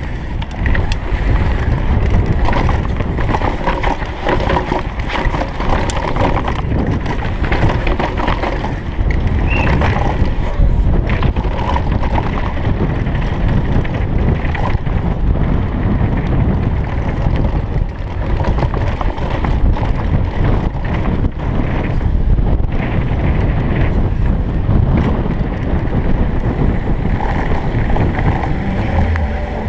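GT Fury downhill mountain bike ridden fast down a dirt trail: wind rushing over the helmet camera's microphone and tyres rumbling, with the bike rattling and knocking over the bumps. Slightly quieter near the end as the bike slows.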